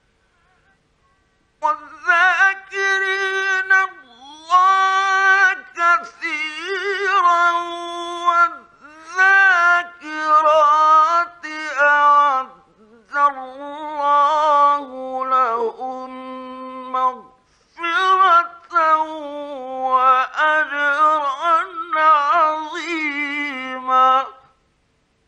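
A man's voice chanting Quran recitation in a high, melodic, ornamented style. Long drawn-out phrases with wavering pitch start about two seconds in and are broken by short breath pauses. It is an archival 1950s Egyptian radio recording.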